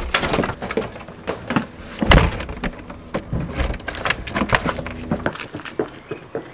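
Front door handle and lock being worked: a run of clicks and rattles, with one heavy thump about two seconds in.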